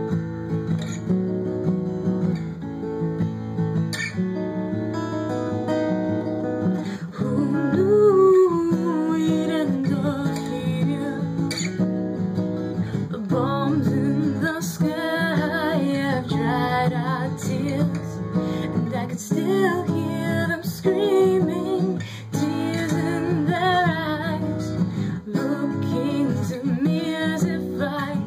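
Acoustic guitar strummed in steady chords. About seven seconds in, a voice joins in singing over it, with sliding notes.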